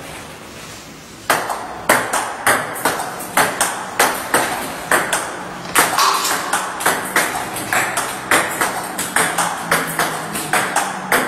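Table tennis rally: a celluloid ball clicking off the bats and the table in a steady rhythm, about two hits a second, starting just over a second in.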